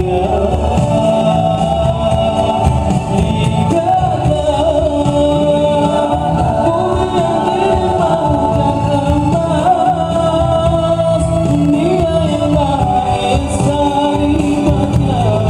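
Male nasyid vocal group singing together in harmony, amplified through handheld microphones, with a steady low-pitched undertone beneath the voices.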